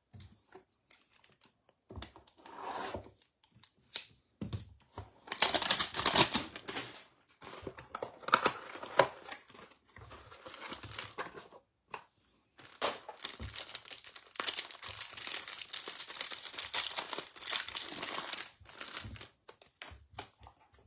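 Packaging of a trading-card hanger box being torn open and crinkled. Short bursts of rustling and tearing with pauses give way to a longer stretch of steady crinkling in the second half.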